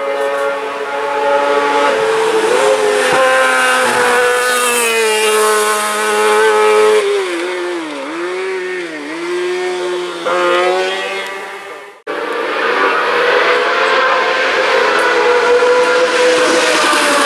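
Race car engines at full throttle on a hillclimb. The first car's engine holds high revs, then dips and picks up again several times about eight to ten seconds in as it takes a bend. After a sudden break near twelve seconds, a single-seater formula car's engine runs steadily at high revs as it approaches.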